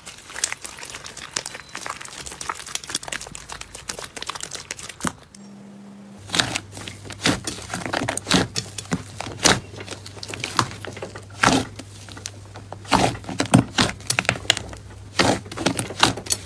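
Slime being squished and pressed by hand, giving rapid crackling clicks and pops. There is a brief lull about five seconds in, after which the clicks come louder over a faint steady low hum.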